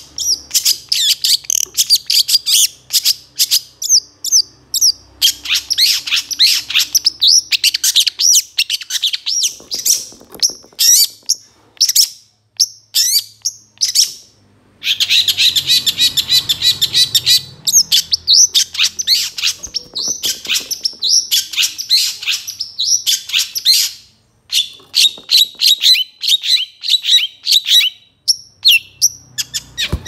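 Long-tailed shrike (cendet) singing a fast, varied song of chirps and trills, a tutor song full of mimicked phrases. It comes in dense runs broken by brief pauses about halfway through and again a few seconds later.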